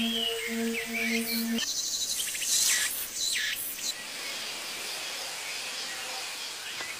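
Music with held notes stops about one and a half seconds in, leaving outdoor ambience: birds chirping, busiest in the middle, over a steady high hiss of insects.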